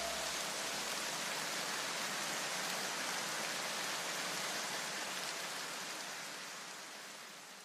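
A steady, even hiss of noise with no tones, left as the last notes of the music die away in the first half-second. It fades out over the last couple of seconds.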